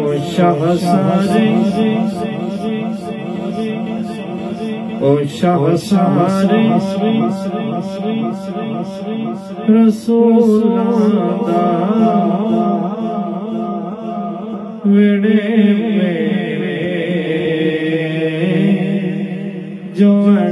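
Chanted vocal music played through speakers driven by a Peavey XR696F powered mixer under test: a sung voice over a regular beat. Its tone changes abruptly several times, and near the end the upper range grows brighter and hissier.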